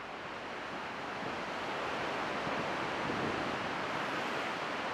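Ocean surf breaking and washing, a steady rushing noise that swells gradually louder.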